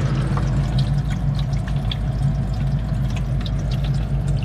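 Ice maker running mid-cycle, with ice cubes forming on its evaporator plate. Its water pump hums steadily as it circulates water that splashes and trickles over the plate back into the tray, with scattered small drips.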